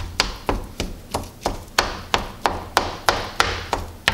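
Spatula chopping raw ground sausage and onion in a stainless steel skillet, its edge knocking against the pan bottom in a steady run of taps about three times a second.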